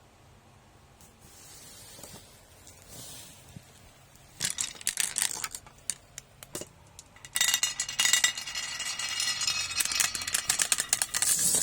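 Marbles rolling and clattering down a marble run. A faint rolling sound comes first, then a quick cluster of clicks about four seconds in. From about seven seconds in there is a dense, louder run of rapid clicks and clinks with a light ringing.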